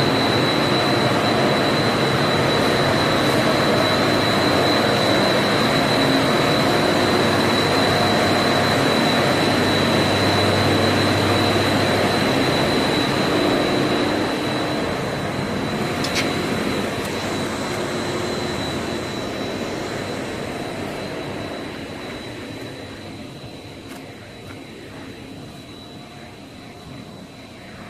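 Running machinery of a PET strapping-band production line: a steady mechanical drone with a constant high whine. It grows fainter over the second half, with a single click about 16 seconds in.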